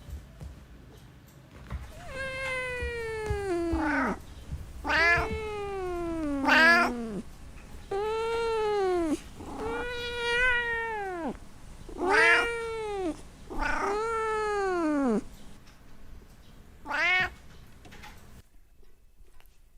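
Domestic cat meowing: a series of about seven long, drawn-out meows a second or two apart, each bending down in pitch at its end, with a short last meow near the end.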